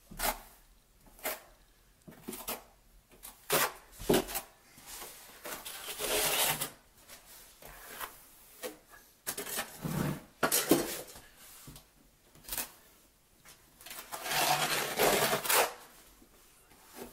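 Steel notched trowel scraping as it spreads mortar over a plywood subfloor, in uneven strokes, the longest lasting up to about two seconds, with a few short sharp taps between them.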